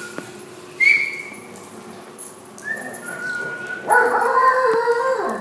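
Dogs whining and yipping: a short high yelp about a second in, thin high whines around three seconds, then a loud, long whine from about four seconds that drops in pitch as it ends.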